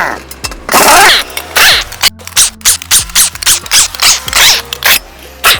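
Pneumatic impact wrench firing in short bursts to loosen a vehicle's wheel nuts: two longer bursts, then a quick run of about eight short rattling bursts, roughly two a second.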